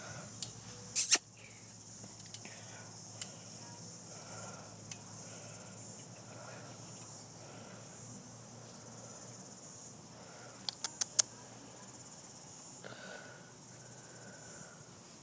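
Steady high-pitched chirring of insects in the grass, with a few sharp clicks: one loud click about a second in and three quick ones about eleven seconds in.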